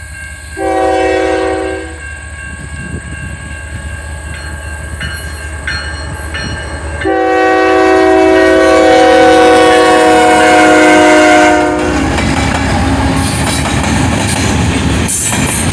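Locomotive chord horn sounding a short blast, then a long blast of about five seconds. After it the train rolls past with a steady noise of wheels on rail.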